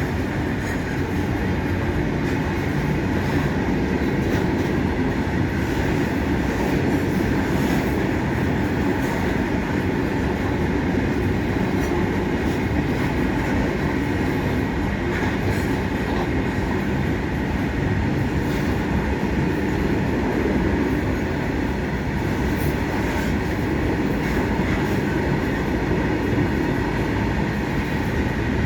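Freight train running at speed: a steady, loud rumble of steel wheels on rail, with faint irregular clicks.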